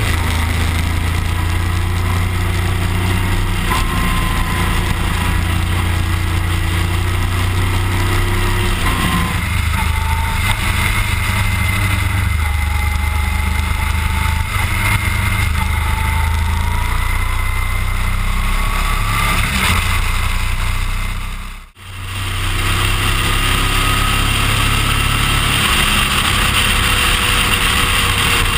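Motorcycle engine running steadily under way on a winding road, its note drifting up a little in places, with wind noise over it. The sound dips out for a moment about three-quarters of the way through.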